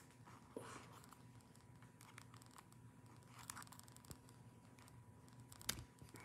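Near silence: room tone with a faint steady hum and a few soft clicks and rustles, the sharpest a little before the end.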